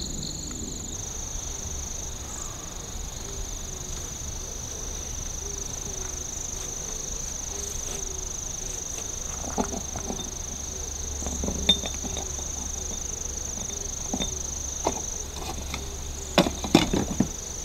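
Night insects singing steadily on one high note, with a faint lower chirping under it. A few sharp knocks break in through the second half, with a quick cluster of them near the end.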